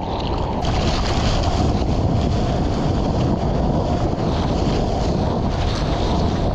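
Sea water sloshing and wind rushing over an action camera's microphone held at the water's surface: a steady, rough noise.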